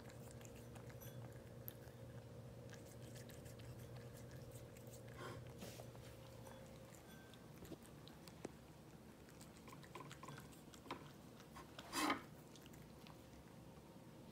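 Cats eating wet canned cat food from a bowl: faint, irregular chewing, smacking and licking clicks, with one short louder noise about twelve seconds in. A faint steady hum runs underneath.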